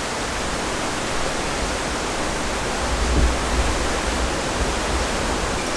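A steady, even rushing hiss with no speech, with a brief low rumble about three seconds in.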